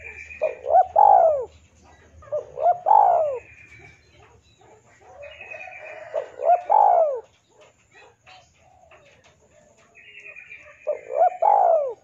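Spotted dove cooing: four phrases, each of two or three short rising-and-falling notes ending in a longer arching coo, a few seconds apart. A higher, thinner chirping call from another bird sounds between the coos.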